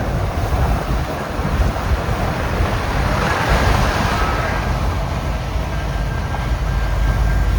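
Steady road and engine noise of a semi truck driving on the highway, a deep rumble under a rushing hiss that swells about three seconds in.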